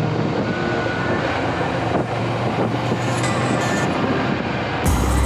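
Motorcycle engine running at steady road speed, with wind and road noise. Music starts abruptly near the end.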